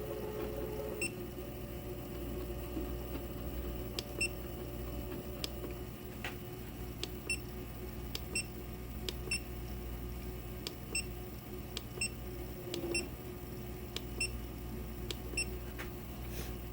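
Lathe control keypad beeping: a dozen or so short electronic beeps at an irregular pace, with a few sharp clicks, as settings are keyed in over a steady machine hum.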